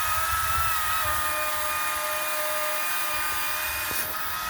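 Chainsaw engine running steadily at high revs, holding one even pitch while cutting firewood, with a brief dip near the end.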